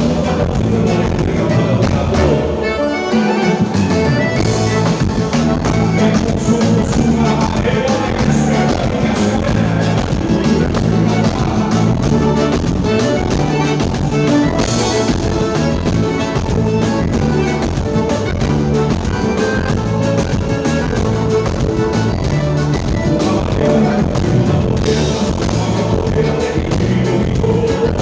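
A band playing live music with a steady beat and bass line; the bass drops out briefly about three seconds in.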